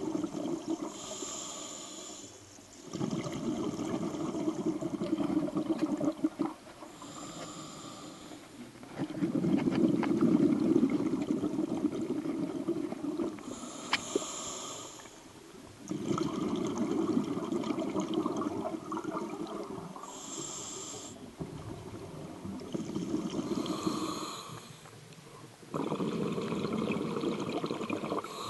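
Scuba diver breathing through a regulator, heard underwater: a short hissing inhale, then a longer gush of exhaust bubbles. The cycle repeats about every six seconds, about five breaths in all.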